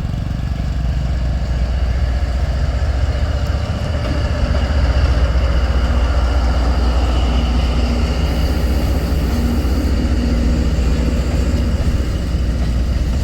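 D19Er diesel-electric locomotive running steadily with a deep engine rumble as it hauls a freight train.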